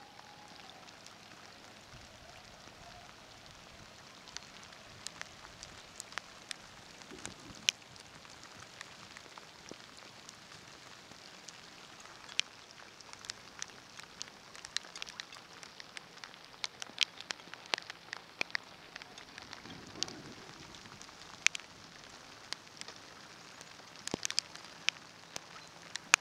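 Rain shower falling on open water: a steady hiss of rain with scattered sharp drop hits, which come more often from about halfway through.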